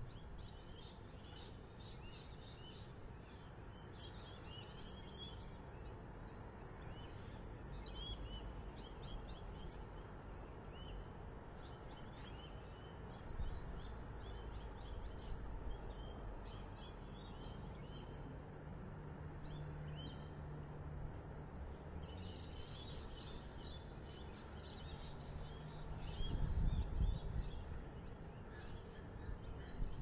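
Outdoor suburban ambience heard from high up: many small birds chirping on and off, over a steady high insect drone and a constant low rumble of distant traffic. A low hum comes in for a few seconds past the middle, and a louder low rumble swells near the end.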